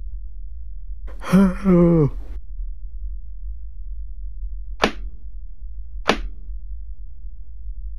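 A short wordless vocal sound from a young man about a second in, a two-part hum with a rise and fall in pitch. Two sharp, very short clicks follow about a second and a half apart, over a steady low hum.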